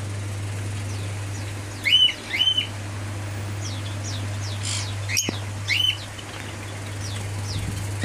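Lovebirds chirping: short, sharp calls, a quick pair about two seconds in and another near six seconds, with fainter high chirps in between and one sharp click just after five seconds, over a steady low hum.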